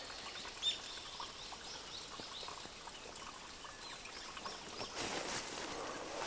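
Faint outdoor ambience with small birds chirping repeatedly, one call louder about a second in. Near the end comes a rustle of footsteps through grass.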